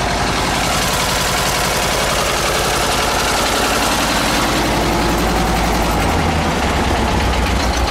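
Diesel tractor engine idling steadily with an even low rhythm; about six seconds in its low note changes.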